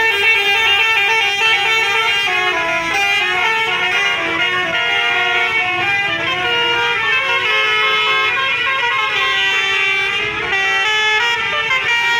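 Basuri telolet horn on a bus playing a tune, a continuous run of notes that step up and down.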